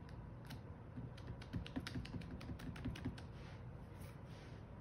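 Plastic-cased ink pad dabbed repeatedly onto a clear stamp to ink it: a run of faint, light taps, about four a second, that stops a little after three seconds in.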